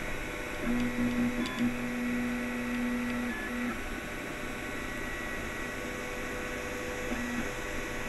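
Anet A8 3D printer printing its first layer: the stepper motors whine at a steady pitch during the print-head moves, one long whine from about a second in to about four seconds, and a short one near the end, over the steady whir of the printer's fans.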